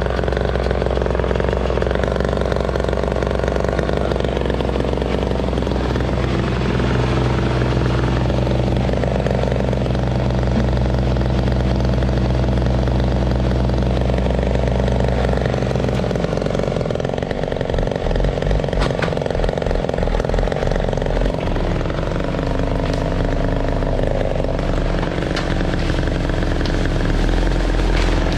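An engine running steadily at one speed. About halfway through, its even drone gives way to a rougher, uneven sound.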